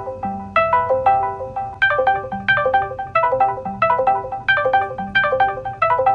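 Discord's incoming-call ringtone playing from an iPhone SE (2022): a looping melody of bright, quickly fading mallet-like notes. Under it is a steady low buzz from the phone's Taptic Engine vibrating against the wooden table, which slowly turns the phone.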